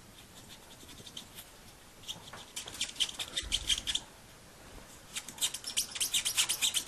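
Pegwood charged with diamond paste rubbed back and forth along the bevel of a German silver watch bridge, a quick run of scratchy strokes, several a second. It comes in two runs, the first about two seconds in and the second about five seconds in. The scratching is the diamond biting into the German silver as it polishes the hand-made bevel.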